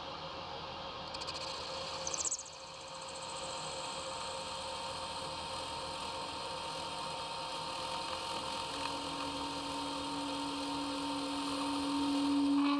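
Metal lathe turning the steel shell of a Mercedes SBC brake accumulator while the cutting tool cuts into it. A high scratchy rattle stops sharply about two seconds in. From about nine seconds a steady droning tone comes in and grows louder toward the end.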